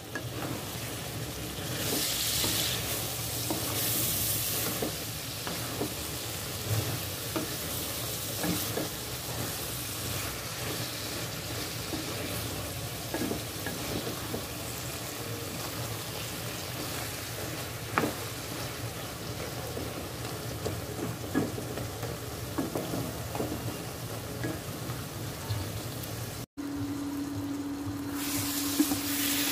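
Elephant ear (taro) stems sizzling as they fry in a non-stick kadai, with a spatula stirring them and knocking and scraping against the pan in scattered clicks. Near the end, after a cut, a steady hum comes in under the sizzle.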